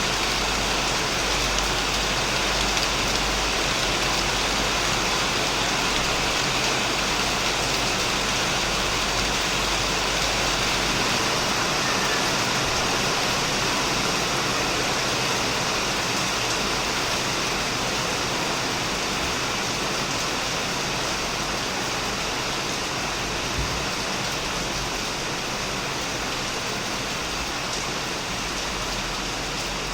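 Heavy rain falling steadily on a shed, an even hiss.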